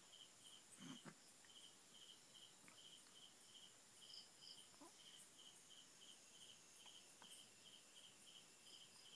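Near silence with faint insect chirping in the background: short high chirps in a steady run, about three a second, often in pairs.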